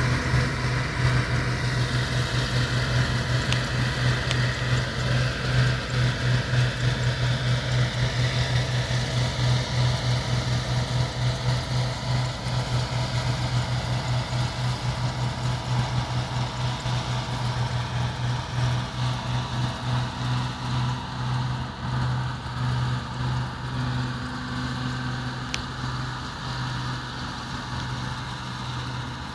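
John Deere 975 combine harvester running, its diesel engine making a steady pulsing drone that slowly grows fainter toward the end.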